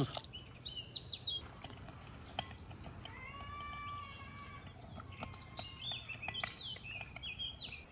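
Songbirds chirping repeatedly, with one longer pitched call lasting about a second, around three seconds in. A few light clicks of a metal spoon against a glass mixing bowl as flour is scooped in.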